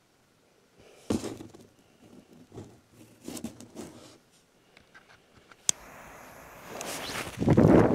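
Scattered light scraping and rustling handling noises, a sharp click about six seconds in, then a louder scuffing noise building near the end.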